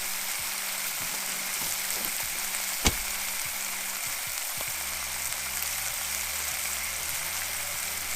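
Food sizzling and frying in a pan on a camp stove, a steady hiss. A single sharp click about three seconds in, and a low hum comes in around halfway.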